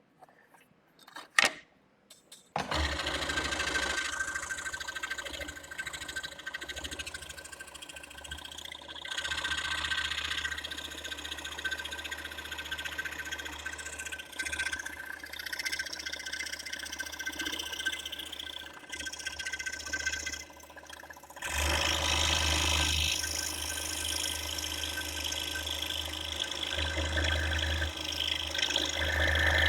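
Scroll saw with a fine spiral blade starting up a couple of seconds in, after a sharp click, then running steadily while cutting interior openings in wood. It dips briefly about two-thirds of the way through and comes back louder.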